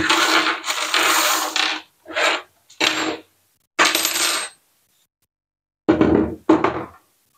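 Small loose metal parts, a threaded insert and Allen keys, clinking and rattling on a workbench. A sharp clink at the start is followed by a longer rattle and several shorter clatters.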